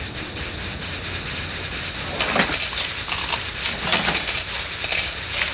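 Cartoon sound effects: a steady low rumble, then from about two seconds in a run of small metallic clinks and rattles, coins tumbling along metal pipes.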